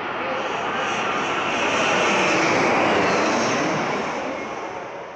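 Passenger plane passing low overhead on its landing approach. The engine noise swells to a peak about halfway through, then fades as the plane moves away.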